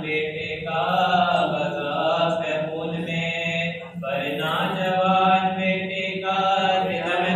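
A man's voice chanting a melodic devotional recitation, read from a book, in long wavering held notes with a brief break for breath about four seconds in.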